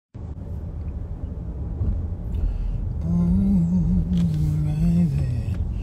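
A low, steady rumble, joined about three seconds in by a held, slowly wavering tune that lasts about two seconds.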